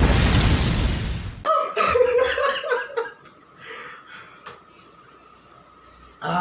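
A loud rushing noise cuts off abruptly about a second and a half in, followed by a short burst of laughter.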